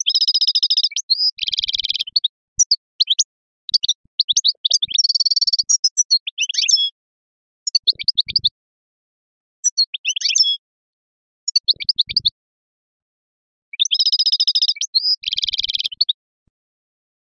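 European goldfinch singing a long song of quick twittering phrases broken by short pauses, with buzzy trilled notes at the start and again near the end.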